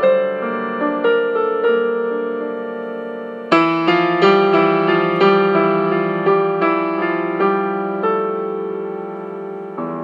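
Slow, calm solo piano music: single notes and chords struck about twice a second, each ringing and fading, with a louder chord about three and a half seconds in.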